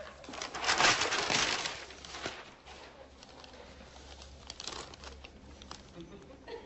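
Paper rustling and crinkling as sheets are handled and a flip-chart page is turned, loudest between about half a second and two seconds in, then quieter handling noises with a few small clicks.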